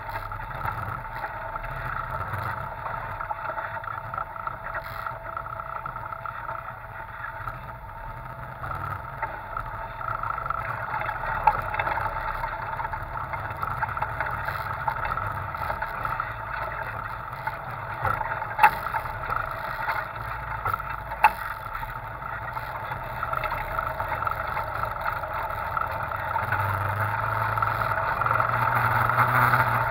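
Side-by-side off-road vehicle's engine running steadily as it drives over a rough dirt trail, with three sharp knocks along the way. It grows louder near the end.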